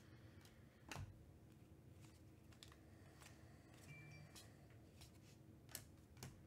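Faint flicks and slides of Panini Donruss soccer trading cards being dealt through by hand, one card moved behind the stack at a time, with a few light clicks of card on card, the clearest about a second in and twice near the end.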